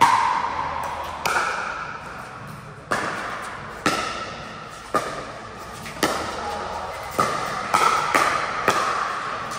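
Pickleball doubles rally: about ten sharp pops of the plastic ball off paddles and the court, each ringing briefly in a large hall, coming quicker near the end.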